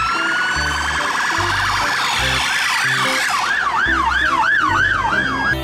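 Police vehicle siren: a long rising wail that turns into a fast yelp of about three up-and-down sweeps a second, cutting off suddenly near the end.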